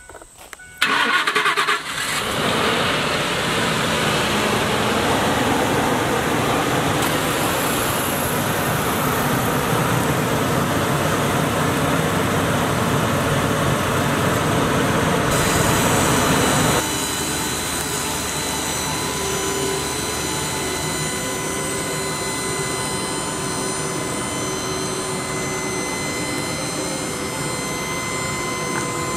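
2006 Ford F350 Super Duty dump truck's engine cranking and catching about a second in, then running steadily. About two-thirds of the way through the sound drops to a quieter steady running with a faint whine.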